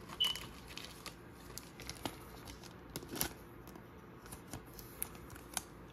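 Faint scattered clicks and rustles of trading cards and their pack wrapper being handled, with a few sharper snaps.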